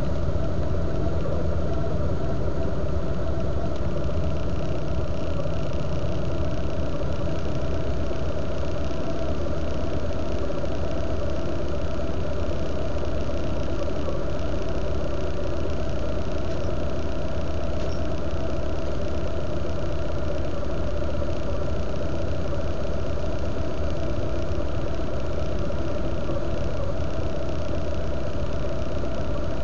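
Vehicle engine idling steadily, a low even hum that holds the same level throughout.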